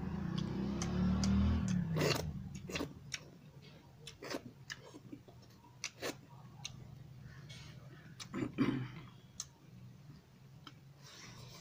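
Eating by hand: wet chewing and lip smacks, with scattered short clicks of fingers and food against a steel bowl and plate. A low hum comes from the eater in the first two seconds.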